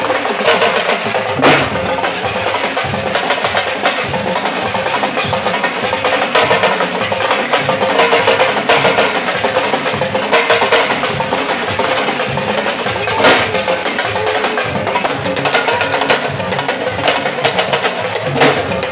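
Live Senegalese sabar drumming by a griot troupe: several drums struck with hand and stick in fast, dense rhythms. A few sharper, louder cracks stand out, once near the start and twice later on.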